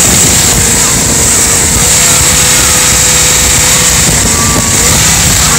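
Jet boat running flat out while towing a water tube: a steady engine and jet drone with a held whine, over the rush of the wake.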